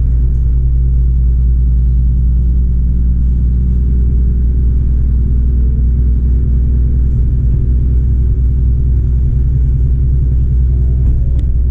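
Koumi Line diesel railcar's engine running, a steady loud low hum with no change in speed.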